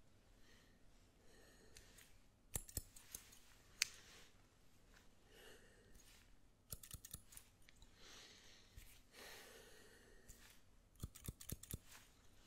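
Barber's scissors snipping close to the microphone in three bursts of quick, sharp snips, with soft comb strokes between them.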